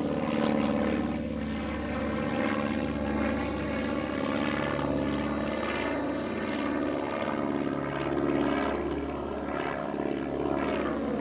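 Propeller aircraft engine droning steadily, a many-toned hum whose overtones slowly sweep up and down.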